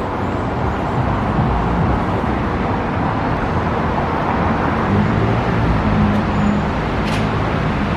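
Steady road traffic noise, a continuous low rumble of passing vehicles, with one sharp click about seven seconds in.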